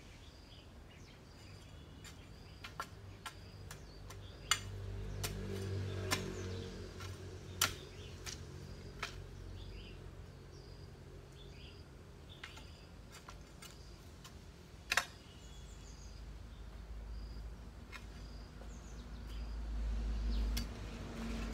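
Rural outdoor ambience: a short high chirp from a bird or insect repeating about once a second, with scattered sharp clicks and a low rumble that swells twice.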